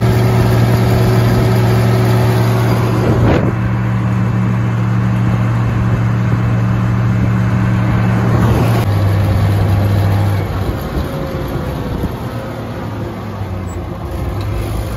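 Oliver 1750 tractor engine running steadily at road speed, heard from the operator's seat. Its note drops lower about nine seconds in.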